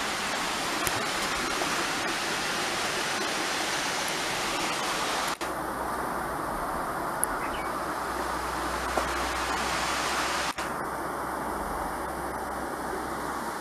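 Water jetting from a burst water pipe, a steady rushing spray that breaks off for an instant twice, about five and ten and a half seconds in.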